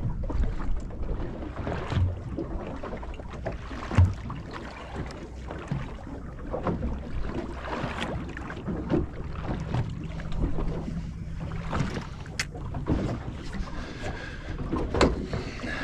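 Water lapping against the hull of a small boat with wind on the microphone, and scattered knocks on the boat, the loudest about four seconds in.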